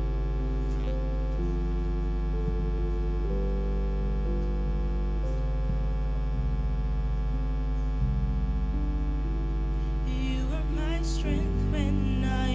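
Electric keyboard playing slow, sustained chords over a loud, steady electrical mains hum. A singing voice comes in about ten seconds in.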